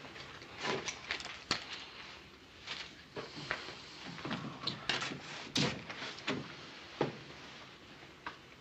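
Scattered knocks and clatter of people moving about a wooden-floored room: boots on the floorboards and a rifle being handled, about a dozen separate sharp knocks with no steady sound between them.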